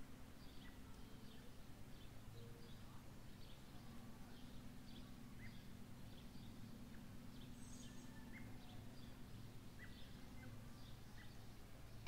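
Faint outdoor ambience: small birds chirping now and then, short high calls, over a steady low hum.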